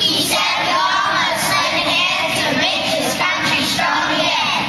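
A large group of young children singing together in unison, many overlapping voices at once.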